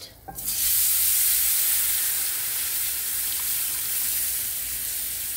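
Broth poured into a cast iron skillet of hot, bubbling gravy base, hissing and sizzling loudly as it hits the pan. The hiss starts suddenly about half a second in and eases off a little toward the end.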